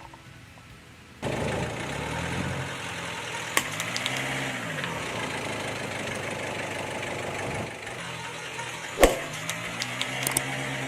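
A car engine starts up about a second in and runs, its pitch slowly rising and falling, while the tyre rolls over objects with sharp cracks and pops. The loudest crack comes near the end.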